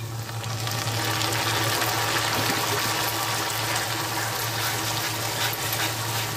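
Mashed boiled amaranth (chaulai) greens sizzling in hot mustard oil and fried onions in a kadhai as they are stirred with a wooden spatula; the sizzle swells up about half a second in and stays steady.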